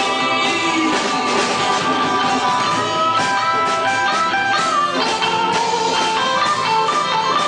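Live rock band playing an instrumental passage between sung verses: strummed guitars over a steady beat, with a sustained melodic lead line bending in pitch.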